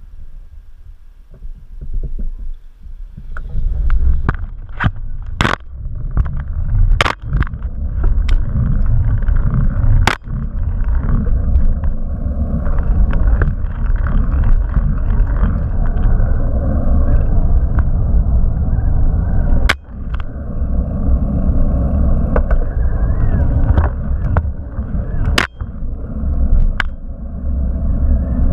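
A bicycle setting off and being ridden, heard through a camera mounted low on its frame: a steady low rumble from the rolling bike, with sharp knocks every few seconds.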